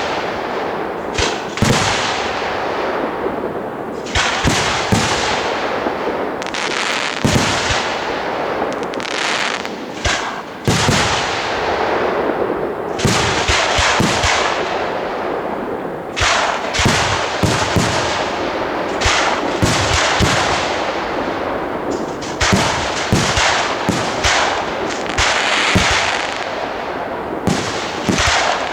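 Large aerial fireworks display: shells bursting one after another with many sharp bangs in quick succession over a continuous dense crackle.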